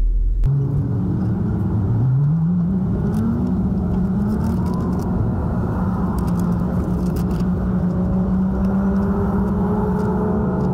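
Car engine and road noise inside the cabin while driving. About two seconds in, the engine pitch rises as the car accelerates, then it settles into a steady drone.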